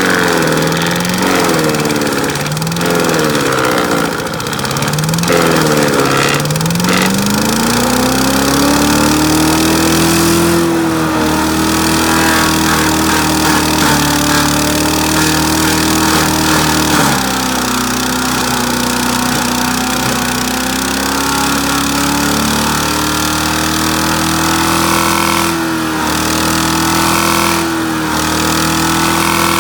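Small gasoline engine of a Great Circle wood chipper running. For the first several seconds its speed surges up and down in a regular rhythm, then it climbs to a steady high speed. About seventeen seconds in it drops to a lower speed, then climbs back, with a couple of short knocks near the end.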